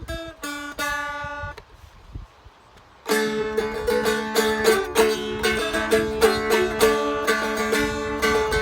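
All-mahogany Seagull Merlin, a four-string dulcimer-style instrument, played by hand: a few single plucked notes, a pause of about a second and a half, then from about three seconds in a louder strummed melody ringing over steady drone strings.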